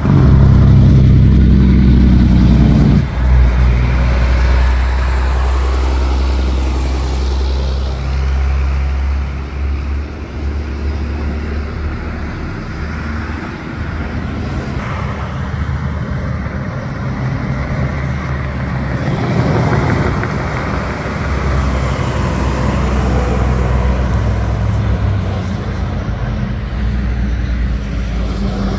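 Heavy diesel trucks and cars passing on the street. A semi tractor's engine is loudest in the first three seconds as it goes by close, then steady low engine rumble and tyre noise carry on, with another vehicle swelling past about twenty seconds in.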